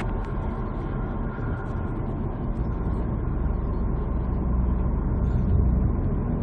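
BMW 320i heard from inside the cabin at road speed: engine drone and tyre noise, the low engine drone growing stronger from about two and a half seconds in as the car accelerates.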